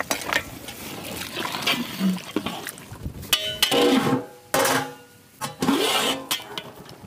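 Cooking sounds at a large aluminium pot of fish curry: the thick liquid being stirred, and the pot's metal lid being handled and knocked against the rim.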